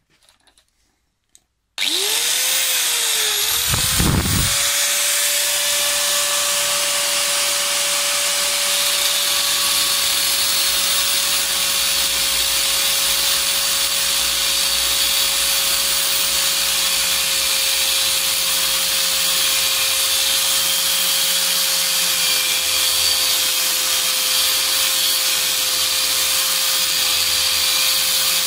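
Angle grinder with a thin cut-off disc switched on about two seconds in. Its whine rises as it spins up, then it cuts into a steel shaft clamped in a vice, with a steady motor whine over a harsh grinding hiss.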